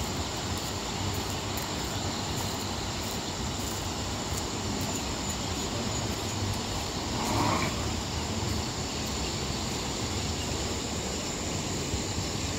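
Steady rushing roar of the swollen Sutlej river in spate, with a brief louder sound about seven and a half seconds in.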